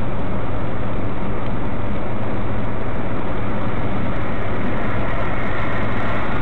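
Steady engine and tyre noise inside a moving car at highway speed, with a low hum under an even rush of road noise.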